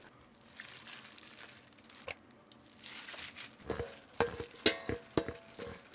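Plastic-gloved hands squelching and rustling through raw salmon strips and sliced onion in a stainless steel bowl. In the second half, several sharp metallic clinks and knocks, some briefly ringing, as the bowl is tipped out over a plate.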